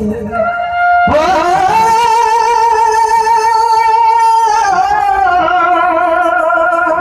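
Loud song music: a long held melodic note with vibrato, sliding down about halfway through into another held, wavering note.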